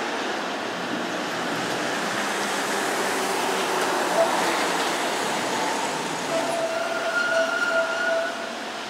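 Kanto Railway Kiha 0 diesel railcar approaching, its engine and running noise making a steady broad rumble. Near the end a high steady tone breaks in and out for about two seconds, then cuts off.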